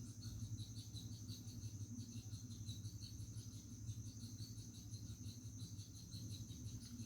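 Faint crickets chirping in a fast, even pulse over a steady low hum.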